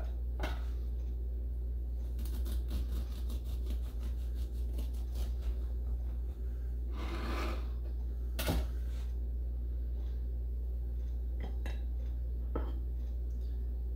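Serrated bread knife sawing through the crisp crust of a dense brown-bread loaf on a wooden cutting board: a quick run of short strokes, a longer rasp, then a single knock about eight and a half seconds in. A steady low hum runs underneath.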